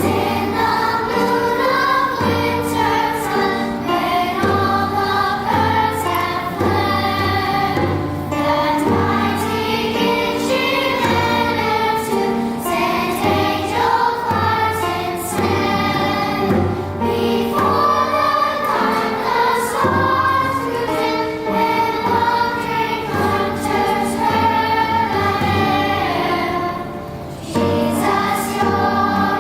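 A choir singing together, with a brief dip near the end.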